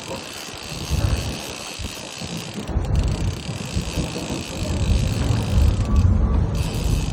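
Wind buffeting the microphone: a low, irregular rumble that swells and drops in gusts, heaviest in the second half, over a steady hiss.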